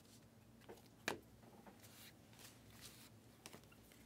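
Trading cards being handled and flipped through, giving faint rustles and light clicks, with one sharper click about a second in.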